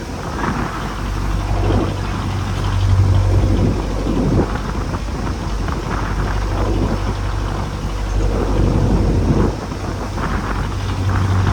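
A boat's engine runs with a steady low hum under rough, gusting noise from wind on the microphone and splashing water in heavy seas.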